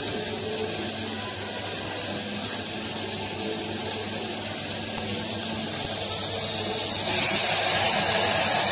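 Potatoes and peas sizzling in hot oil in a pressure cooker, a steady hiss. Near the end it grows louder and brighter as the water mixed with chilli powder, turmeric and salt is poured into the hot pan.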